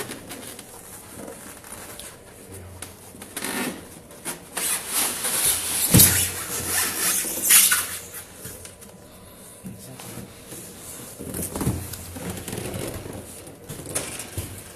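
Cardboard box and packing rustling and scraping as an electric scooter is lifted out of its carton, with two loud knocks about six and seven and a half seconds in.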